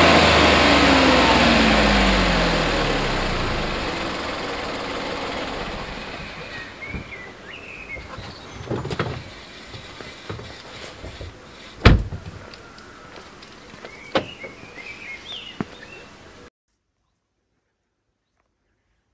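A car engine pulling away, its pitch falling and its sound fading steadily over several seconds. Then a few sharp knocks, the loudest about twelve seconds in, among short high chirps, before the sound cuts off abruptly.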